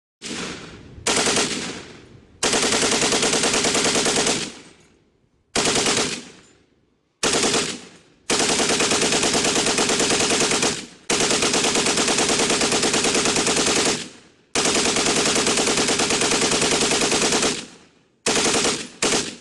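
Browning belt-fed machine gun firing in bursts of rapid automatic fire. Several long bursts last around three seconds each, with shorter bursts near the start and end, and each burst is followed by a fading echo.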